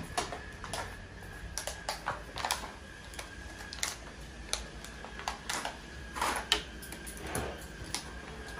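Irregular clicks and light clatter of car wiper blades being handled: taken down from display hooks and laid on a glass counter.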